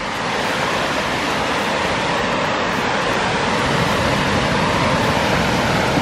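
Steady rushing roar of a nearby waterfall, building a little louder during the walk toward it.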